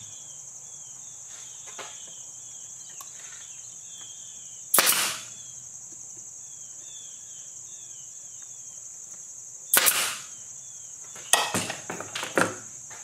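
Pneumatic brad nailer driving 5/8-inch brads into a wooden stile: two sharp shots about five seconds apart. A cluster of lighter clicks and knocks follows near the end.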